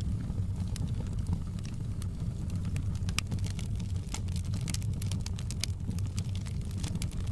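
Wood fire burning in a fireplace: a steady low rumble of the flames with frequent sharp crackles and pops, busiest in the middle stretch.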